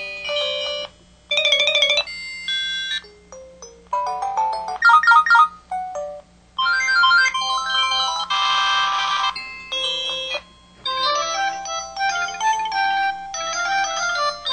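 An MS550 mobile phone's built-in alert and effect sounds, previewed one after another. They are a series of short electronic jingles and tone patterns with brief gaps between them, including one buzzy trilling tone near the middle.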